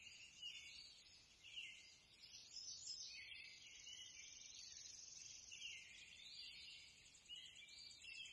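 Near silence: only a faint, high-pitched outdoor background, with no clear sound from the screwdriver work.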